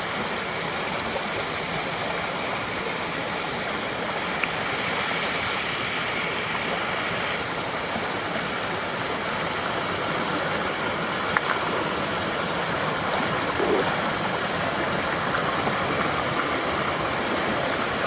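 Creek water running in a steady rush, with a few faint knocks.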